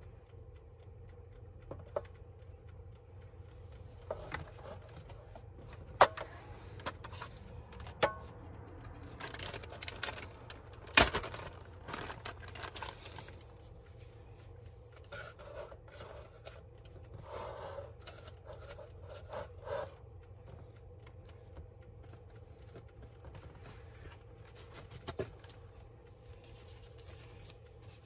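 Food-prep handling at a table: a series of sharp knocks and clicks as things are picked up and set down, the loudest about eleven seconds in, then aluminium foil and a plastic zip-top bag crinkling. A faint steady hum runs underneath and stops near the end.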